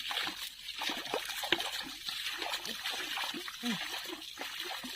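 Water splashing and trickling, with many small irregular splashes and drips.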